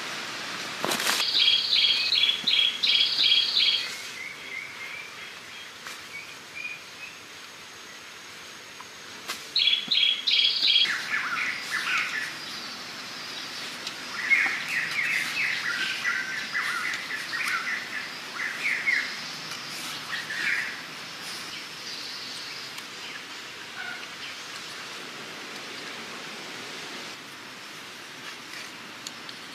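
Birds calling: quick bursts of rapidly repeated high chirps near the start and again about ten seconds in, then several seconds of lower, faster chirping phrases. A faint steady outdoor hiss runs beneath.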